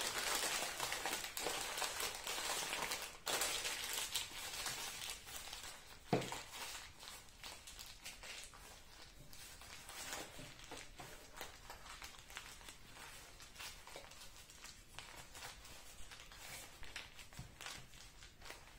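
Newspaper being crumpled and squeezed by hand into a ball: a dense rustle in the first few seconds, then softer scattered crinkles. A single knock sounds about six seconds in.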